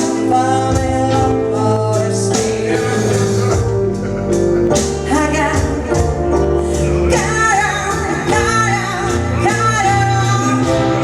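A song with singing over instrumental accompaniment and a bass line.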